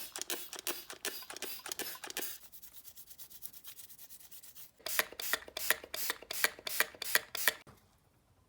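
Quick back-and-forth hand rubbing or filing strokes, about four to five a second. They grow weaker for a couple of seconds in the middle, come back stronger, then stop shortly before the end.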